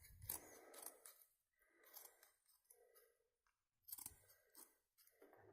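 Faint snipping and clicking of scissors at work, with a few short sharp clicks near the start and again about four seconds in.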